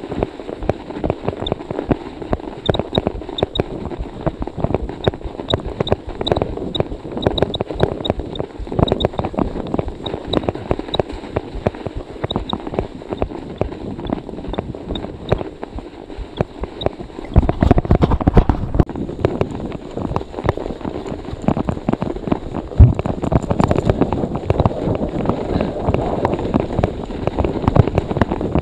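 Cyclocross bike tyres crunching through fresh snow at a slow riding pace: a dense, irregular crackle. Wind rumbles on the microphone in louder stretches in the second half.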